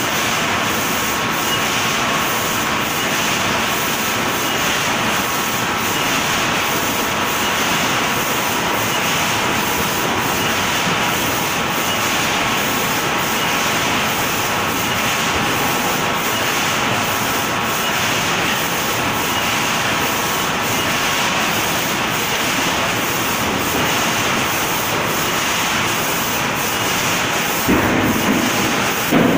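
Steady machine noise of a bag packing line running, belt conveyors and a robotic case packer, with a faint steady tone riding on it. Two short louder bumps come near the end.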